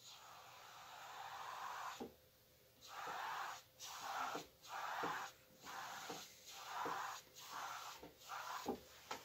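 Bristle brush scrubbing thin oil paint across a stretched canvas: one long stroke, then about eight shorter back-and-forth strokes, each a soft brushing rush.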